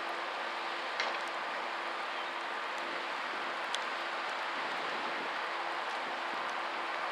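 Steady hiss of heavy rain mixed with the low hum of a push tug's engine and the churning of its propeller wash as it pushes a barge away. A couple of sharp ticks come about a second in and near four seconds.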